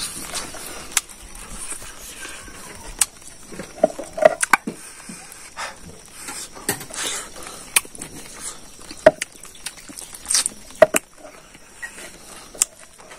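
Close-up eating sounds from a person eating pork leg and rice by hand: chewing and lip smacks with sharp, irregular clicks.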